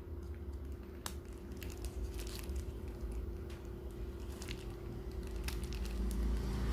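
Hands handling an earbud charging case and its packaging: scattered small clicks and crinkles over a steady low rumble and a faint steady hum.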